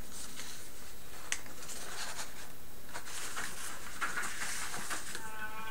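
Papers rustling and being handled, with a few small clicks, over a steady background hiss. A brief faint voice comes in just before the end.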